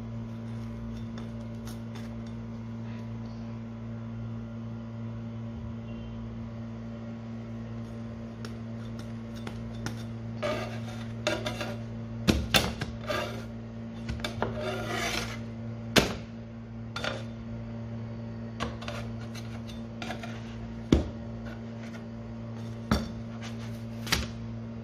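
A metal spatula scrapes and clicks against a nonstick pan as flatbreads are turned and pressed: short scrapes with sharp taps, sparse at first and more frequent in the second half. A steady low hum runs underneath.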